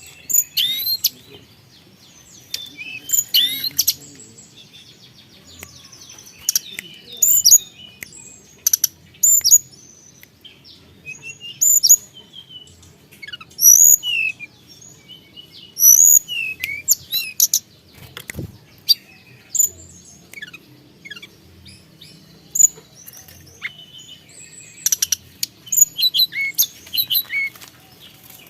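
Tledekan gunung, a blue flycatcher, calling in short, sharp, high chirps and quick sliding whistles, delivered in clusters every second or two.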